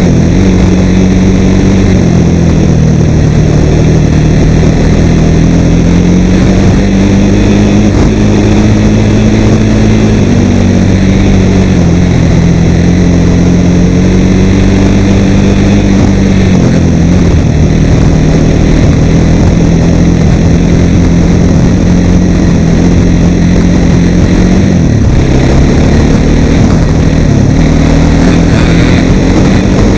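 Suzuki LTZ400 QuadSport ATV's single-cylinder four-stroke engine running loud on the trail, its pitch rising and falling with the throttle, easing off briefly a few times and climbing again near the end.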